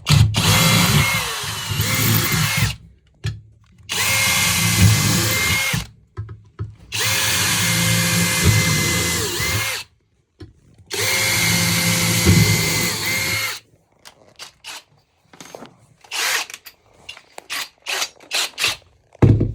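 A power tool's motor running in four bursts of two to three seconds each, a steady whine that sags in pitch as each run stops, followed by several seconds of scattered clicks and knocks.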